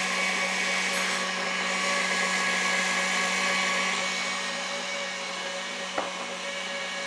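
KitchenAid Artisan stand mixer running steadily, its wire whisk beating egg whites and sugar to stiff peaks for a meringue-style sponge. A single short click sounds near the end.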